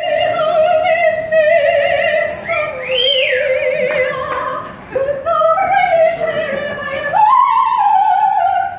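Operatic female singing: long, loud high notes with wide vibrato, with a swoop up to a higher note and back down about three seconds in.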